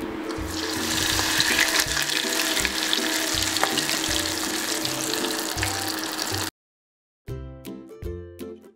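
Shrimp- and sweet-potato-topped bread deep-frying in hot oil, a steady crackling sizzle over background music. The sizzle stops abruptly about six and a half seconds in, and after a brief silence only the music goes on.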